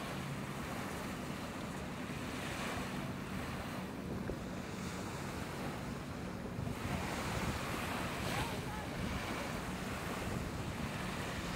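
Shoreline ambience: small waves washing and wind rushing over the microphone, a steady noise with a faint low engine hum underneath.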